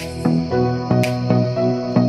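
Background music: an instrumental track of pitched notes with a light beat about once a second.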